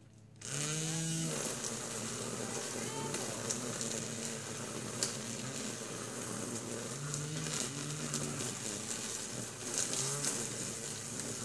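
String trimmer running steadily while cutting weeds, its motor pitch rising and falling at times. It starts about half a second in.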